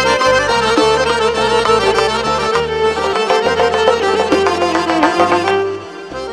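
Instrumental break in a Khorezm classical song: a busy, ornamented melody over a bass line, with no singing. The bass drops out and the music thins briefly near the end.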